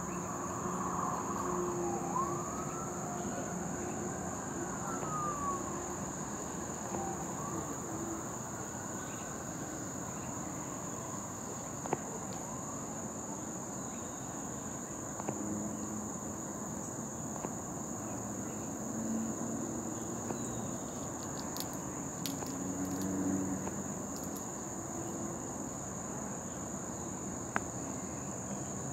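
A steady, high-pitched chorus of insects, with two faint rising-and-falling glides in the first ten seconds.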